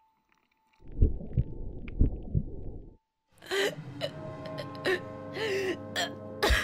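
Muffled chewing, with several sharp thuds over about two seconds, then a short pause. From about three seconds in, a girl's voice choking and gasping for air, over steady sustained music.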